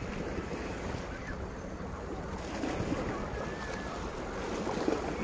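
Sea waves washing against a rock breakwater, a steady rushing noise, with wind buffeting the microphone.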